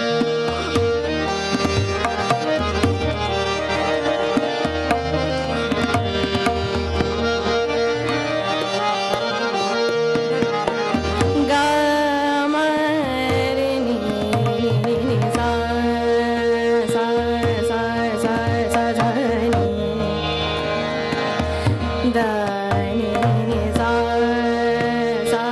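Hindustani classical music in Raga Rageshree. Tabla strokes keep the rhythm over a steady drone from the tanpura and harmonium, and a woman sings gliding melodic phrases, most clearly in the second half.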